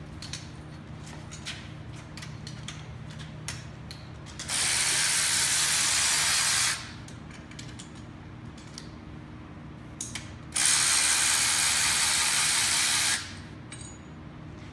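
A ratchet clicking rapidly on the camshaft bolts of a Lamborghini Gallardo V10 in two even runs of about two seconds each, with scattered light tool clicks in between.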